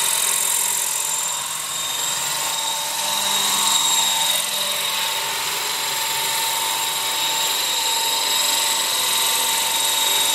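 Electric Align 550 RC helicopter, converted to 600 size, in flight: a steady high-pitched motor and gear whine over rotor-blade noise, its pitch wavering slightly about four seconds in.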